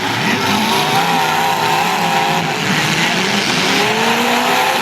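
Demolition derby cars' engines revving, several at once, their pitch rising and falling as the drivers work the throttles.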